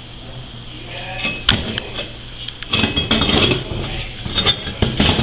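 Metal pieces clinking and knocking together in a quick irregular run of sharp strikes with a light ring.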